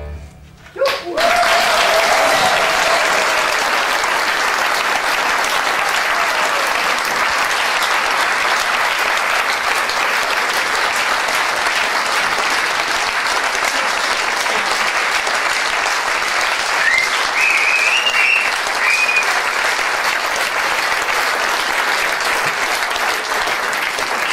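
Audience applauding loudly and steadily as an accordion orchestra's piece ends; the clapping breaks out about a second in and carries on without letting up.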